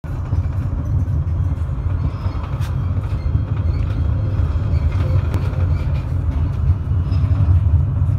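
Tram running along its track, heard from inside at the rear of the car: a steady low rumble of wheels on rails, with a couple of faint clicks.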